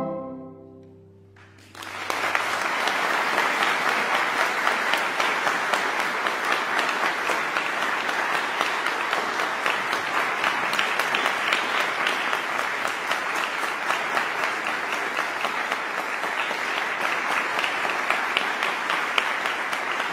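The last chord of a marimba, violin and cello trio fades out, then about two seconds in an audience starts applauding, steady and sustained.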